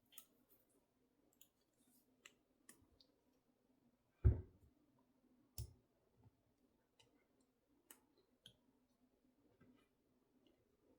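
Faint scattered clicks of a shim being worked into a Peerless 700C handcuff's ratchet to slip it open, with a louder dull knock about four seconds in.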